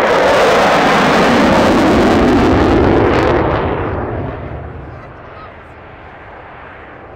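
F-16 Fighting Falcon jet engine in afterburner, a loud rushing jet noise that starts fading about three seconds in as the fighter climbs away into the distance.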